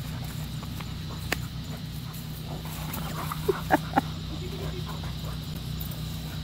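Alaskan malamute and pit bull play-fighting, with a quick run of short barks about halfway through over a steady low hum.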